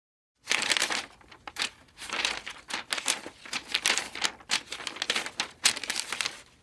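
Paper pages of a book being turned and leafed through quickly, a run of rustling swishes and flicks one after another. It starts about half a second in and stops just after the end.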